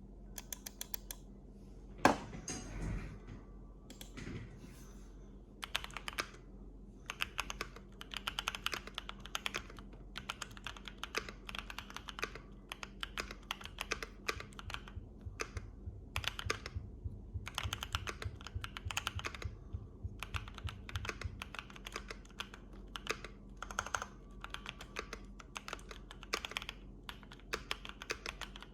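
Typing on a Keychron Q3 mechanical keyboard with lubed Boba U4T tactile switches and doubleshot PBT keycaps, tape- and force-break-modded: runs of quick keystrokes with short pauses between them. One louder thump comes about two seconds in.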